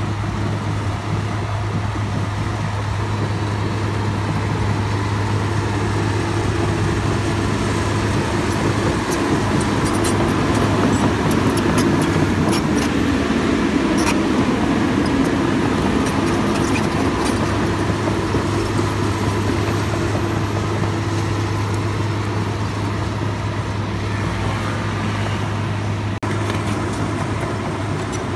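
Diesel engine of a Komatsu PC200 hydraulic excavator running steadily with a low drone. The working noise grows heavier through the middle, with scattered clicks and knocks.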